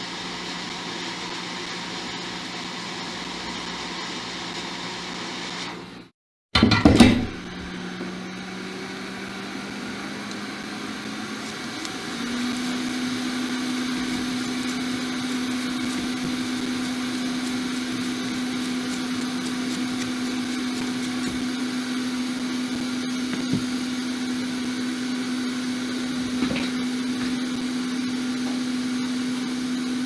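Steady whirr of a small electric fan or blower motor. About six seconds in the sound drops out briefly, a short loud clatter follows, and then the whirr returns, stepping up to a higher steady pitch.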